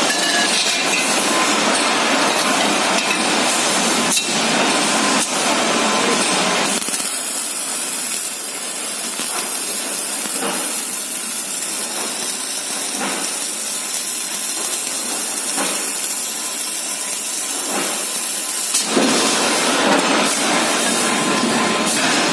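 Double-torch automatic MIG welding machine running, its welding arcs giving a steady crackling hiss with scattered sharp clicks. From about seven seconds in until near the end, the deeper part of the sound drops away and it runs a little softer.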